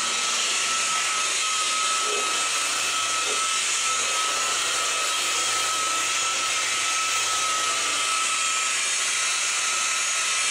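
Electric rotary polisher running steadily with a foam pad pressed against a car's painted quarter panel, buffing the clear coat: a constant motor whine over a hiss.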